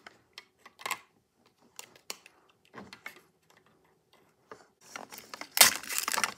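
Scattered small clicks and taps as little plastic toy pieces are handled and set on a shelf. About five and a half seconds in, loud crinkling starts as a small plastic wrapper around a miniature toy is torn open.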